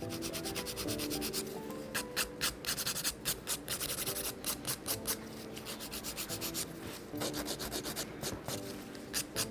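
Hand nail file rasping across an acrylic nail in quick back-and-forth strokes to finish its shape. The strokes come in runs with short pauses between them.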